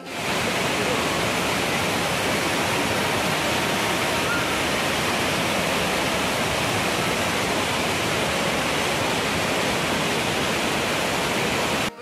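A waterfall: a big volume of white water pouring down steep rock faces, heard close up as a steady, even rush.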